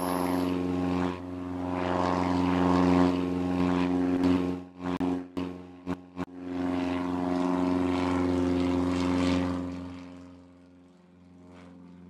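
Piston-engined propeller airplane running steadily. It cuts out briefly several times about five to six seconds in, then fades away near the end.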